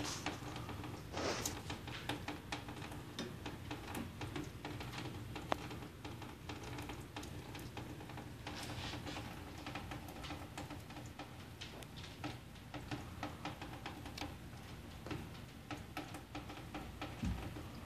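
Water dripping from a leaking brass drain elbow and PVC trap: many small irregular ticks over a low steady hum.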